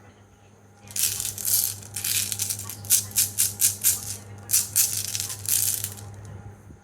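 Marbles rolling and clattering down a wooden marble run, a rapid rattling with quick clicks that starts about a second in and dies away near the end.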